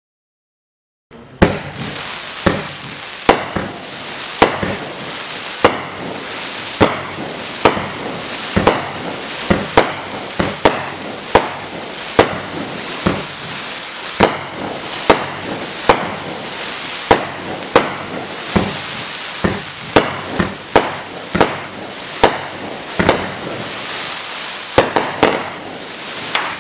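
Black Scorpion 'Gemstone Jackpot' 25-shot, 1.2-inch fireworks cake firing shot after shot, starting about a second in: a sharp report roughly once a second over a steady hiss.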